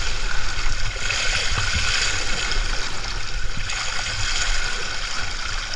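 Steady rushing of water running down an open water slide around a rider's float, with irregular low bumps underneath.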